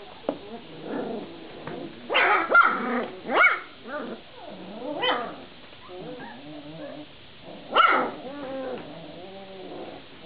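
Vizsla puppies yapping and squealing as they play together in a pen, with a cluster of sharp yelps about two to four seconds in, another loud yelp near eight seconds, and low wavering growls in between.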